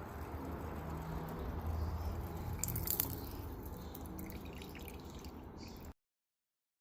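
Quench-tank liquid dripping and bubbling just after hot blades have been quenched in it, with a few sharp clicks about three seconds in. The sound cuts off abruptly just before six seconds.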